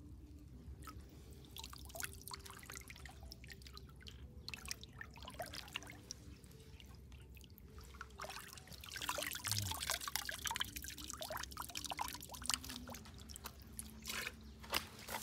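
Hands scooping and stirring through shallow water, with small splashes, trickles and drips as water runs off them. It is busiest a little past halfway.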